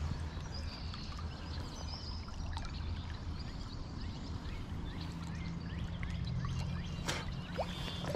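Creek water flowing and trickling steadily, with scattered faint ticks and a few faint high chirps over it.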